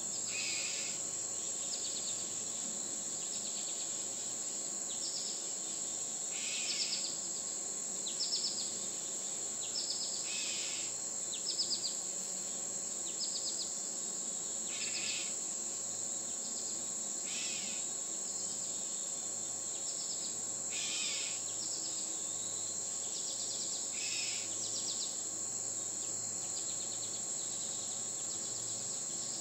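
Steady high-pitched drone of insects, with short bursts of chirping bird calls every one to three seconds.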